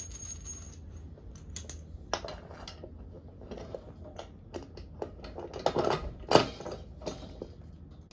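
Small metal parts and hardware clinking and rattling as they are handled while fitting a minibike wheel, with scattered clicks and one louder knock about six seconds in.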